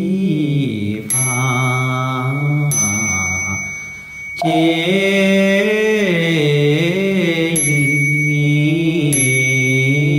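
Buddhist fanbei chant, sung in long, slowly wavering melodic lines over a steady sustained drone, with a brief pause about four seconds in. A high ringing tone enters four times.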